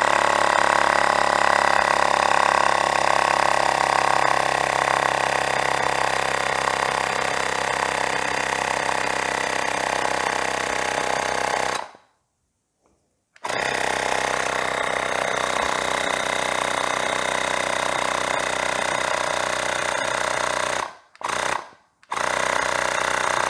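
Ferrex mini air compressor running steadily as it pumps up a flat bicycle tyre toward about 40 psi. It stops about 12 seconds in and starts again a second and a half later, then is stopped and started twice in short runs near the end as the tyre is topped up.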